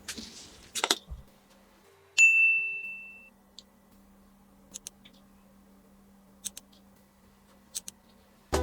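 A few light rustles and clicks of toys being handled, then one bright ding about two seconds in that rings for about a second before fading. Faint scattered clicks follow, and music starts right at the end.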